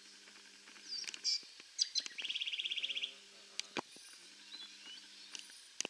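Birds calling: a few short high chirps, then a rapid trill of about fourteen even notes lasting under a second, about two seconds in. A faint steady low hum runs underneath part of the time.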